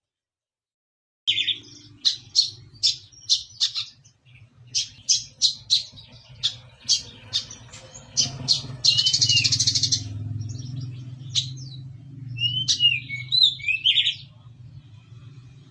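Brown-throated sunbird (kolibri kelapa) singing: a run of sharp, high chirps about two or three a second, then a fast dense trill, then a few curling slurred notes near the end. A steady low hum runs underneath.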